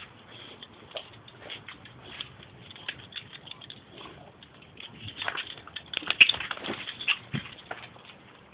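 Dogs sniffing and scrabbling on concrete: irregular short clicks and scrapes, busiest from about five to seven seconds in.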